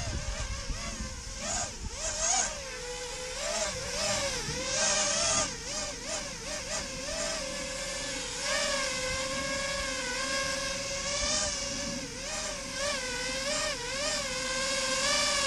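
XHover Stingy quadcopter's motors whining, the pitch wavering up and down with quick throttle changes, settling into a steadier whine with small wobbles in the second half.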